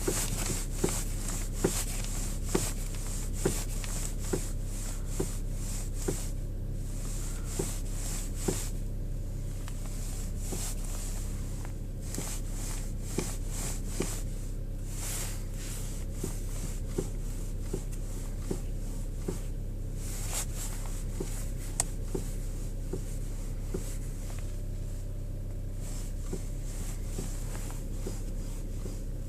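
Skoda Rapid 1.6 petrol engine idling steadily while the steering wheel is turned, with light irregular knocks coming through, often about one a second. The knock appears only with the car cold in sub-zero temperatures.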